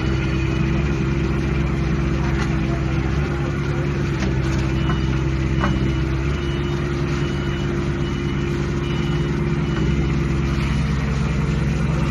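Mini excavator's Kubota diesel engine running steadily at an even speed, with no revving or load changes.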